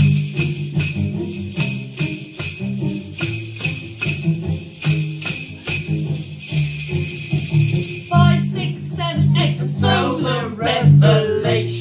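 Hand-held jingle bells shaken by several people in a steady rhythm, over backing music with a low bass line. Voices start singing about eight seconds in.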